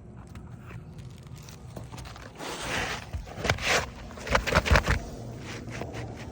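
Asphalt roofing shingles being handled and worked on the roof: a run of scraping and crackling about midway, with a few dull thumps near the loudest part.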